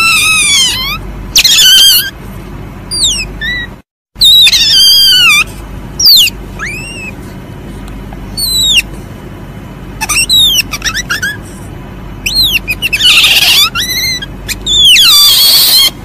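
Palm civet (musang) calling: a run of short, high, squeaky calls that arch and fall in pitch, coming in quick clusters, with harsh hissing screeches near the end.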